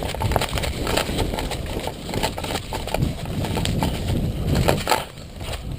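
Quick, irregular footsteps crunching through dry brush and twigs, with loose gear knocking, as someone runs.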